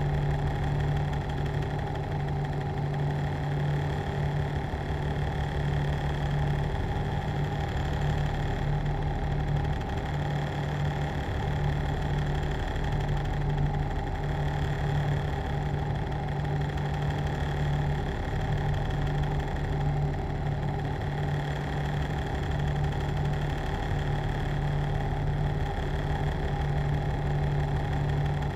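Machine running steadily: a constant hum with a strong low tone and a fast, even pulse, unchanging throughout.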